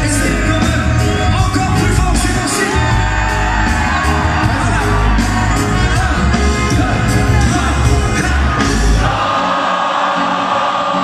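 Live reggae band playing loud through a concert hall PA, with a heavy bass and drum beat, lead vocals and whoops from the crowd. About nine seconds in, the bass and drums drop out, leaving voices and crowd noise.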